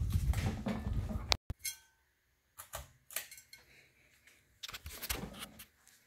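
Air from a Kichler Sterling Manor 52-inch ceiling fan buffeting the microphone held close under its spinning blades, mixed with clicks and rattles of handling. The sound cuts out briefly about a second and a half in, then returns in a few smaller clicks and a second gusty patch near the end.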